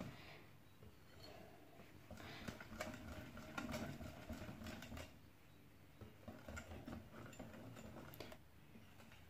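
Wire whisk beating thin rice-flour crepe batter in a glass bowl: faint, quick ticking of the wires against the glass, in two spells with a short pause between.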